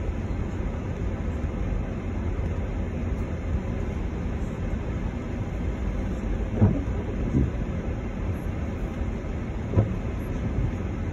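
Steady low rumble of a car heard from inside the cabin while driving on a wet road. The windscreen wiper thuds twice as it sweeps, once a little past the middle and again near the end.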